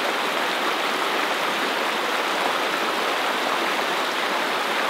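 Steady rush of water, shallow lake water lapping and washing over the rocky shore, an even hiss with no breaks.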